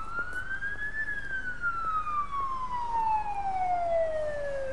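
An emergency vehicle's siren wailing. Its single tone rises for about a second, slides slowly down over the next three and a half seconds, and starts to climb again at the end.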